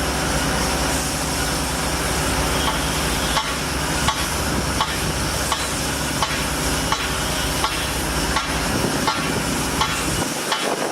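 Construction machinery running steadily under a wash of site noise, with a sharp knock repeating about every 0.7 s from about three seconds in. The machine's low hum drops out near the end.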